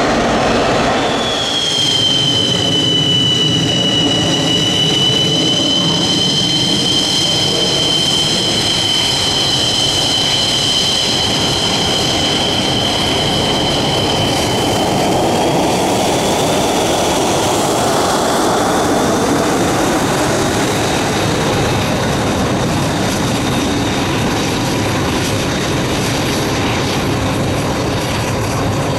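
JF-17 Thunder fighter's Klimov RD-93 turbofan running on the ground: a loud steady rumble with a high whine. The whine shifts a little higher and fainter about halfway through.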